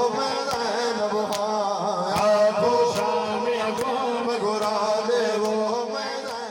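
Men chanting a noha together, with hand strikes on the chest in unison a little more than once a second keeping the beat of the matam. The sound begins to fade near the end.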